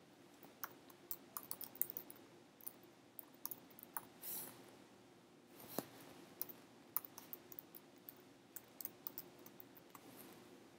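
Typing on a computer keyboard: faint, irregular keystroke clicks coming in short runs.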